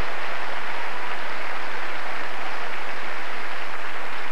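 Audience applauding, a steady even wash of clapping.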